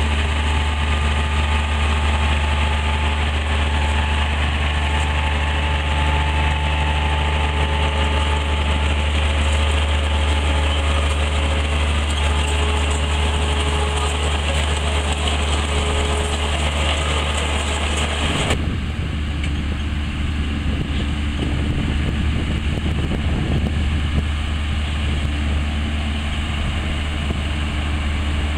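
Tractor engine running steadily with a potato harvester working, a deep drone under a rattling hiss. About two-thirds of the way through, the upper rattle and hiss cut off abruptly, leaving mostly the low engine drone.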